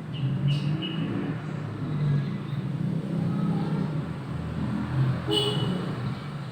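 Steady low engine rumble of road traffic, with two brief high-pitched sounds, one about half a second in and one near the five-second mark.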